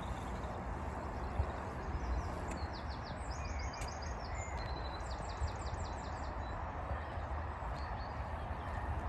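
Steady outdoor background noise with a low rumble, and a small bird's quick repeated chirping in the middle, roughly between three and six seconds in.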